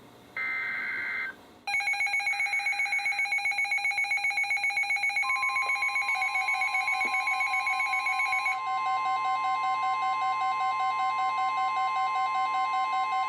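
The tail of a NOAA Weather Radio SAME data burst, then several weather alert radios alarming at once: overlapping rapid beeping tones, joined about five seconds in by one steady warning tone, signalling that a flood warning has been issued.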